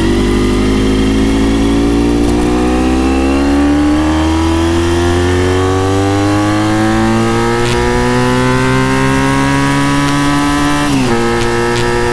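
Honda RVF400 NC35 V4 with gear-driven cams and a TSR slip-on silencer, accelerating: its note climbs steadily under throttle, then drops sharply about eleven seconds in as it is shifted up a gear and starts climbing again. A brief knock is heard about two-thirds of the way through.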